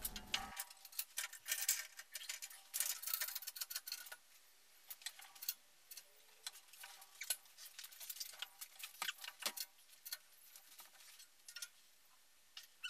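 Faint, irregular clicks and light metallic ticks from a hydraulic engine hoist being pumped by hand to lift a mill, with small clusters of clicks at times.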